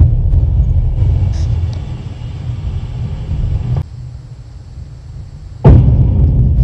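Deep rumbling explosion sound effects. The rumble of one blast cuts off abruptly about four seconds in, and near the end a second blast hits with a sharp crack and rumbles on.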